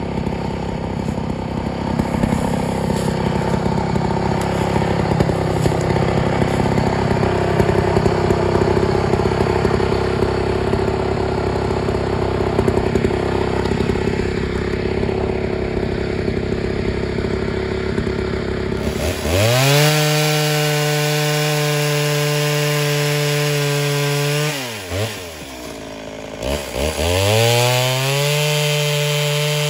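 A ported Homelite Super XL Auto two-stroke chainsaw running. About two-thirds of the way in it settles to a steady, high-pitched full-throttle run while cutting through a log. Near the end its pitch drops sharply and recovers twice.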